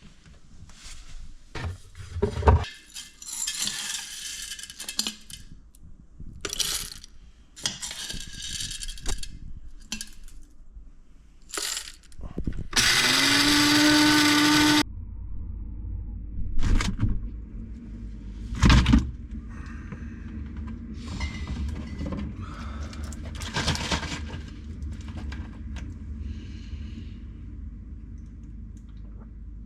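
Kitchen clatter, with knocks and the rattle of items being handled. Near the middle a small electric motor appliance spins up and runs steadily for about two seconds, then stops, and a low hum continues after it.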